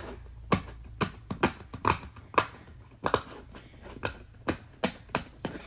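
A plastic pop-it fidget toy's bubbles being pressed in and popped: about a dozen sharp pops at an irregular pace of roughly two a second.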